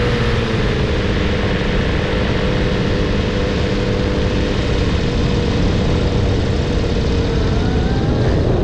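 Tandem paramotor trike's engine and caged propeller running steadily in flight, a constant drone mixed with heavy wind noise on the microphone.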